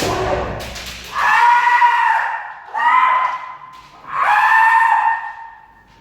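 Three long, high-pitched kendo kiai shouts, each held about a second.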